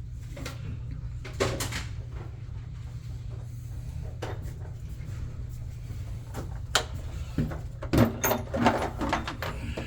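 Scattered clicks and knocks of parts and tools being handled, most of them close together near the end, over a steady low hum.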